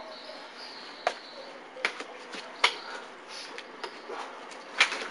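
Scuffle between two men on rough ground: four sharp impact sounds of blows and feet landing, the loudest near the end, over a steady background hiss.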